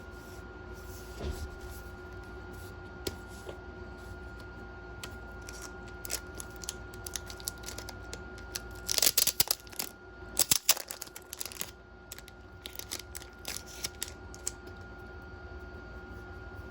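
Magazine packaging and paper being handled: scattered small clicks and rustles, with a louder burst of rustling about nine to eleven seconds in, over a faint steady hum.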